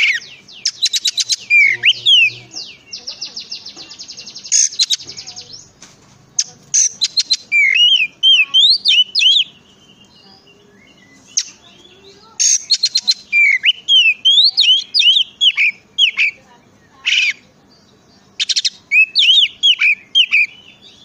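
Oriental magpie-robin (kacer) singing a varied song in bursts: fast rattling trills, a long buzzy trill in the first few seconds, and runs of quick slurred whistled notes, with short pauses between phrases.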